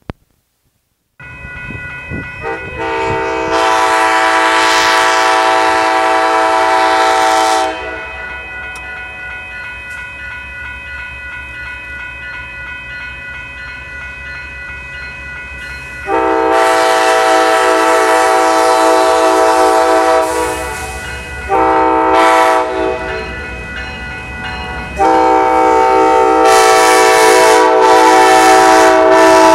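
Air horn of an Amtrak GE P42DC locomotive blowing the grade-crossing signal: long, long, short, long. Steady ringing sounds between the blasts, and the train's rumble grows as the locomotive arrives near the end.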